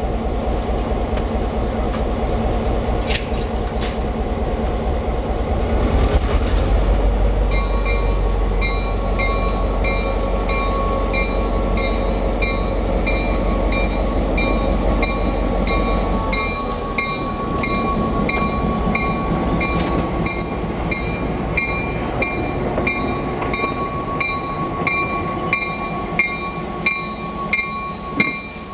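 Diesel locomotive engine running, its low sound rising about six seconds in as the locomotive throttles up and moves off. From about eight seconds a bell rings steadily, about one and a half strikes a second, as the locomotive rolls slowly by.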